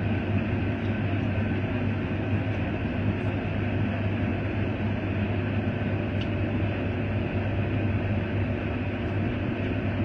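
Combine engine and engaged corn head running steadily, a low even mechanical hum heard from inside the cab. This is a test run of a corn head that has sat unused for a year, checking that nothing is locked up.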